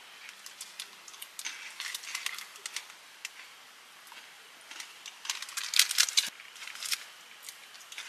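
Crumpled foil-and-plastic snack wrapper crinkling and crackling as it is handled, in scattered sharp crackles that grow denser and louder a little past the middle.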